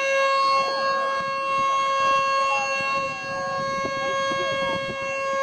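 Federal Signal Model 2 outdoor warning siren sounding during a test, holding a steady pitch with strong overtones.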